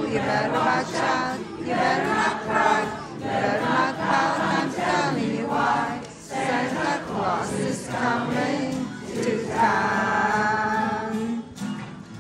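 Mixed choir of men's and women's voices singing in a church, ending a phrase on a long held chord about ten seconds in.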